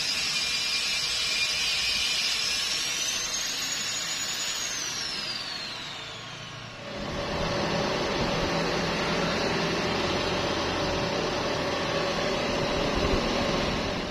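Electric power tool running with a high whine that rises in pitch, then winds down about halfway as it spins down. A steady rough hiss with a low hum follows.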